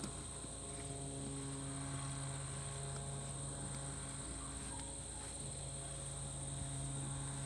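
Steady, high-pitched chorus of insects trilling continuously, with a low steady hum underneath.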